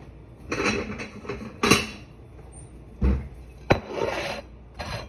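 A run of handling clatter while a plate is fetched: short rattles, two sharp clicks and a heavier thump about three seconds in.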